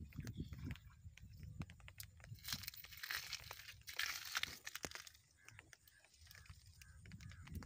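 Handling noise as caught fish are picked up and laid out on sandy ground: scattered small clicks and crunches, with a crinkling rustle in the middle for a couple of seconds.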